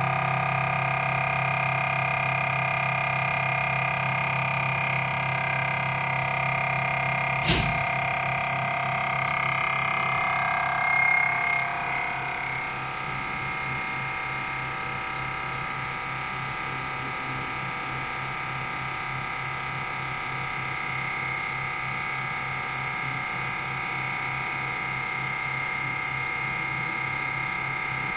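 Common rail injector test bench running: its motor and high-pressure pump give a steady hum with a high whine. One sharp click comes about seven and a half seconds in. Around eleven seconds the whine shifts and then settles a little quieter.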